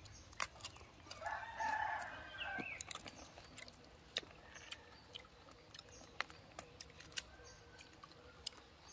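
A rooster crowing once, starting about a second in and lasting about a second and a half, with scattered light clicks around it.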